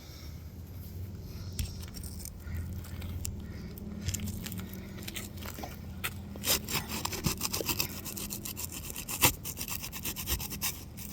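Asphalt roof shingle being worked loose for a repairability test: irregular scraping and crackling with scattered sharp clicks as its sealed tabs are pried up, louder twice near the middle and toward the end.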